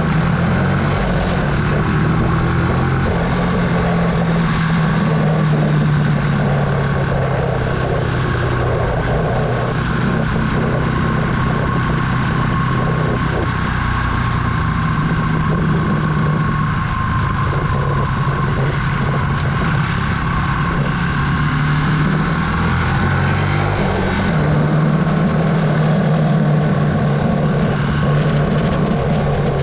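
Archive AM60 125cc single-cylinder café racer engine running steadily at city riding speed, heard from on board. The engine note drops and then picks up again about two-thirds of the way through as the rider eases off and rolls on.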